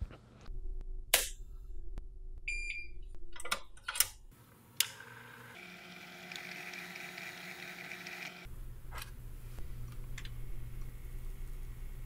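A short electronic beep from the soldering bench equipment about two and a half seconds in, then scattered clicks and a steady hiss lasting about three seconds, as a soldering iron tip is worked in a tip tinner.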